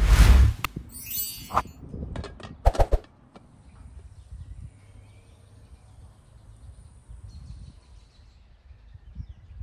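A loud rushing burst of noise, then a few sharp knocks and clatters over the next two seconds or so, followed by faint background ambience.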